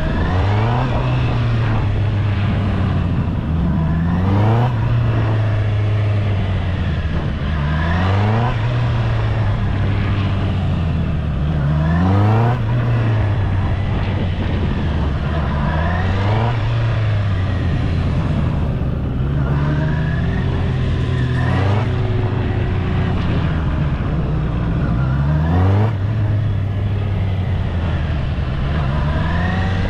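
Honda CB650R's inline-four engine accelerating and easing off over and over, its pitch climbing and dropping back about every three to four seconds as the bike is ridden through a tight cone course.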